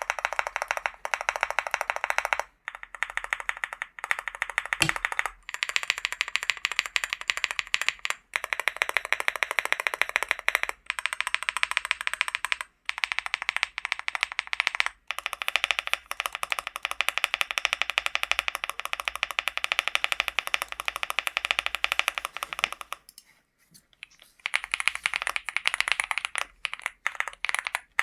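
Fast continuous typing on a LEOBOG Hi75 keyboard with Akko V3 Cream Black Pro linear switches: a dense stream of keystroke clacks, broken by a few brief pauses and a longer one about 23 seconds in.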